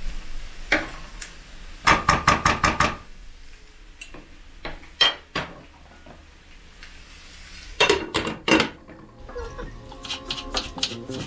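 Wooden spatula knocking against a non-stick frying pan in quick runs of taps, about two seconds in and again around eight seconds. Near the end a knife chops lightly and quickly on a wooden cutting board.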